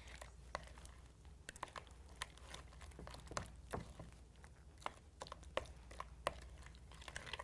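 A utensil stirring glue-and-borax slime in a glass bowl: faint, irregular clicks and squishes as it works through the mixture, over a low steady hum.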